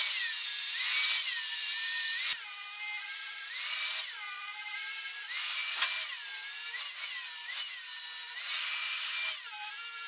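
An angle grinder with an abrasive disc grinds paint off steel square tubing down to bare metal, clearing spots for welds. Its high motor whine sags in pitch each time the disc is pressed onto the metal and rises again as the pressure eases, about once a second. It grows quieter a little past two seconds in.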